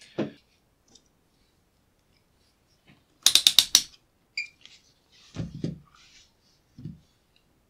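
A multimeter's rotary range switch clicked quickly through about six detents, followed by a few soft knocks as the meter and its probe leads are handled on the bench.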